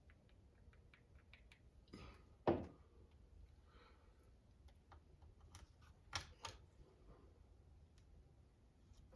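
Light clicks and taps of small parts and hand tools being handled, with a sharper knock about two and a half seconds in and a couple more clicks around six seconds in.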